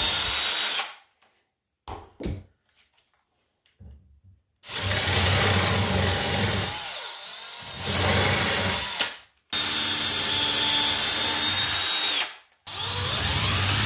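Cordless drill running in several runs of a few seconds each, with short pauses between them, boring 1/8-inch pilot holes in a wooden cabinet face frame and countersinking them with a larger twist bit. The motor's whine dips and climbs back as the bit bites.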